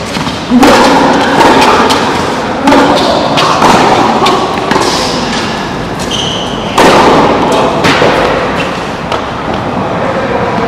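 Tennis ball struck by rackets during a rally: several sharp hits a second or more apart, each trailing off in echo.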